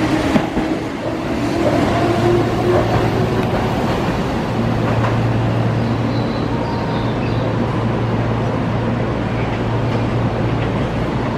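Keihan electric trains. In the first moment a red-and-yellow 8000 series train runs along the station platform, then a steady rumble and hum as a 3000 series train approaches with its headlight on.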